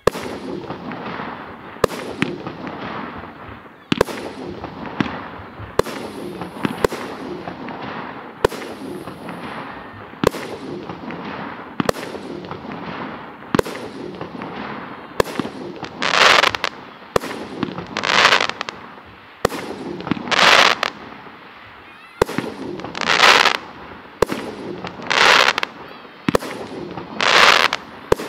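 Professional fireworks display: aerial shells going off with sharp bangs about every two seconds, each followed by a crackling tail. About halfway through, louder hissing, crackling bursts of about a second each join in, roughly every two seconds.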